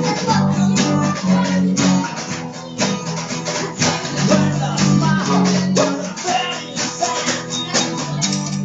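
Electric bass guitar being plucked, playing a line of held low notes with frequent plucked attacks.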